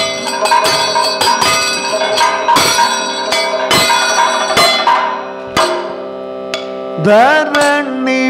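Kathakali vocal music with bell-metal cymbals and gong: a sustained sung line over a run of ringing metallic strikes. The strikes stop about five and a half seconds in, and the voice slides upward near the end.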